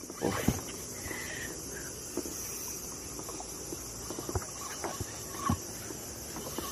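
Fishing rod and spinning reel being worked on a plastic kayak: scattered light clicks and knocks over a steady high hiss.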